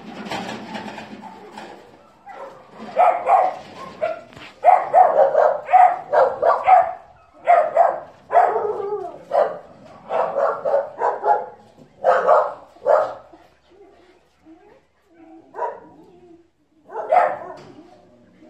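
Dogs barking: a dense run of short, loud barks through the middle, then two single barks near the end.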